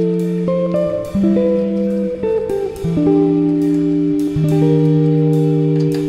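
Background music: a guitar playing a melody of held notes that change about once a second.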